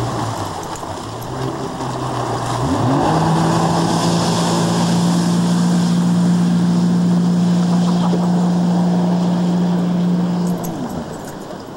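Jet ski engine running low for a couple of seconds, then revving sharply to full throttle about three seconds in for a takeoff and holding a steady high pitch over the rush of its spray as it speeds away. Near the end the engine note drops and fades.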